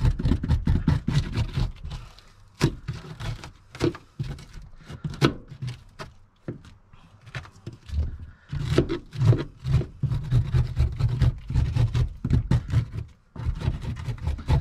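A hand chisel scraping, knocking and prying chunks out of old, dried-out RV floor wood stiffened with a hardened tar coating: a rapid, uneven run of sharp knocks and scrapes, with spells of dense low thudding at the start and again from about eight seconds in.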